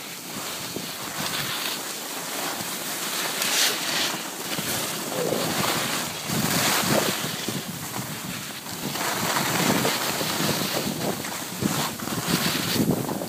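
Wind rushing over the microphone of a skier filming while skiing downhill, with the skis scraping on the snow through the turns; the rush swells and fades every second or two.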